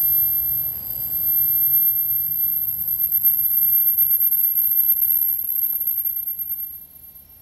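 ER2M electric multiple unit slowing into the platform: a loud, steady, high-pitched squeal from the train over the low rumble of its wheels. Both stop suddenly near the end as the train comes to a halt.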